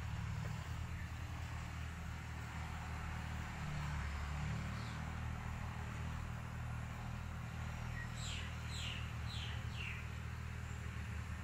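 Steady low background hum, with a small bird giving four quick falling chirps about eight seconds in.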